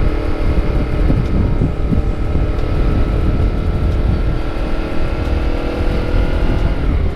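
Honda CBR250RR with a KEA Speed aftermarket exhaust running under way at a steady cruise, its engine note holding even and rising slightly, then dropping off just before the end as the throttle is eased. Wind rushes over the microphone.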